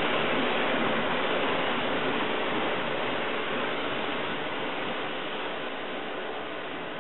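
Pressure washer running, its water jet spraying onto a car's paintwork to rinse off shampoo suds: a steady hiss with a faint steady hum under it, slowly getting quieter.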